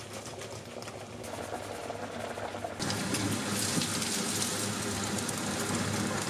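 Mixed vegetables sizzling in a frying pan, a steady hiss that gets louder about three seconds in.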